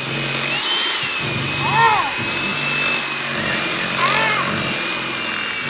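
Electric hand mixer running with its beaters in a bowl of cream cheese, butter and powdered sugar filling: a steady high motor whine that shifts slightly in pitch as the load changes.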